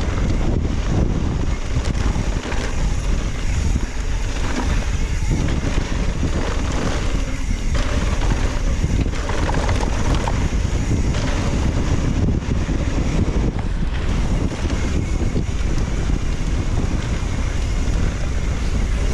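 Strong wind buffeting the microphone on a mountain bike ride: a loud, continuous rumbling roar, mixed with the rattle of the bike over the trail.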